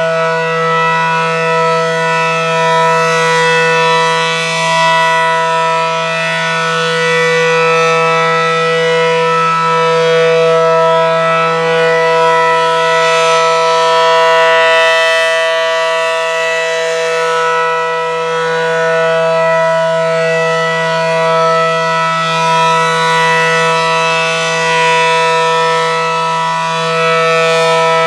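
ACA Allertor electromechanical outdoor warning siren sounding a steady alert: a loud, sustained, low-pitched tone of several notes at once that holds its pitch, swelling and easing slightly in loudness.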